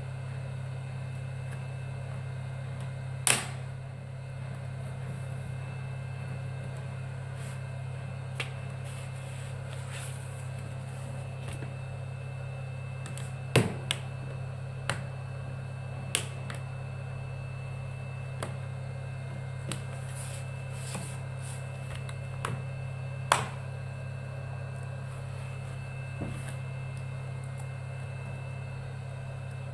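Irregular sharp clicks and snaps, about a dozen, as a thin tool pries a Samsung Galaxy Tab 2 10.1's touch glass away from its plastic frame. A steady low hum runs underneath throughout.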